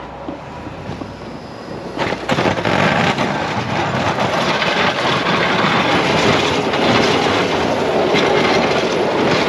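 Pickup-mounted snowplow blade scraping hard-packed snow off the pavement and pushing a pile of snow. It is a rough, steady scraping noise that gets much louder about two seconds in, as the truck reaches the camera.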